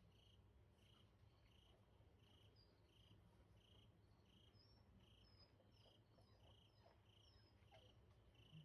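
Faint night insects chirping, most likely crickets: one steady, regular chirp about twice a second, with scattered higher chirps among it.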